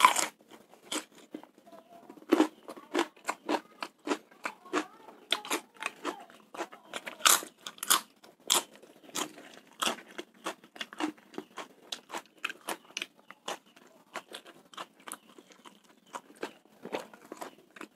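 Close-miked chewing with frequent sharp crunches, a few a second, irregular: a person eating spicy fried rice topped with crunchy kerupuk crackers and raw bird's eye chilies.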